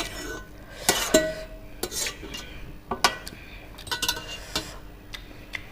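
Eating utensils clinking and scraping against a dish: a string of sharp, irregular clicks, one of which rings briefly about a second in.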